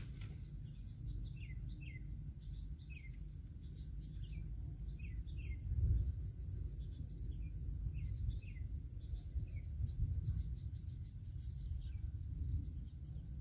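Riverside ambience: a bird repeats short, falling chirps, with a steady high insect whine that stops about two-thirds of the way through and gives way to a faint insect trill. Under it runs a low rumble that swells about halfway through.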